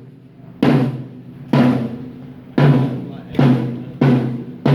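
A single drum struck again and again, about once a second, each hit ringing with a low tone and fading before the next. It is the steady, one-drum-at-a-time hitting of a sound check.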